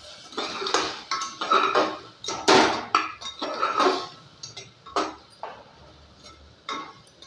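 A spatula scraping and knocking against the inside of an aluminium pressure cooker as chunks of banda and onion are stirred with salt and masala: quick strokes for about four seconds, then a few single knocks.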